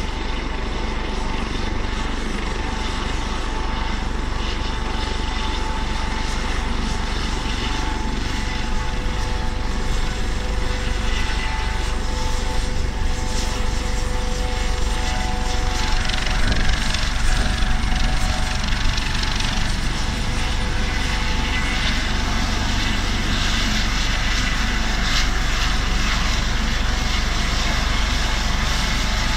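Airbus AS365/565 Dauphin twin-turboshaft helicopter running on the ground with its main rotor and Fenestron tail rotor turning: a steady heavy rotor rumble under a constant turbine whine, swelling slightly about halfway through as the helicopter turns on the spot.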